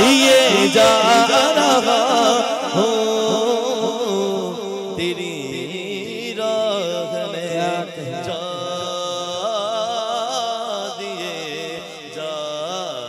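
Male voice singing a naat into a microphone, drawing out long, wavering melismatic notes without clear words, growing gradually softer toward the end.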